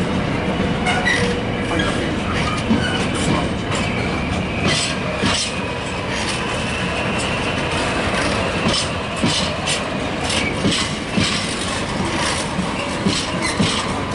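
Intermodal container freight train's flat wagons rolling past at a steady pace, wheels clacking irregularly over rail joints.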